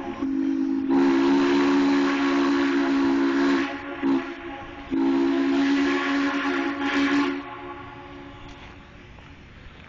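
1944 steam locomotive's whistle sounding several notes at once, with steam hiss: a long blast, a short toot and another long blast, closing the long-long-short-long pattern of a grade-crossing signal. After the last blast only a fainter hiss is left.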